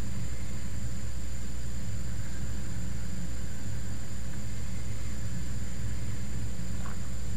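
Steady low hum and rumble with a faint hiss and a thin high whine: constant room or recording background noise, unchanging throughout.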